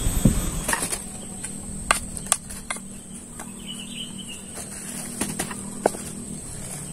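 Light clicks and knocks of a spoon against a metal saucepan and of cooked tubers dropping onto a leaf as they are tipped out of the pot. It opens with a brief loud rushing rumble that cuts off under a second in.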